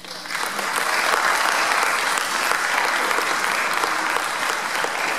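Audience applauding, swelling over the first half second and then holding steady, at the end of a handbell and cello piece; the last held note dies away under the clapping at the start.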